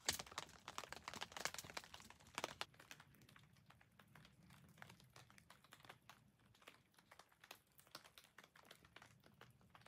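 Near silence broken by faint, irregular small clicks and crinkles, more frequent in the first few seconds and sparser after.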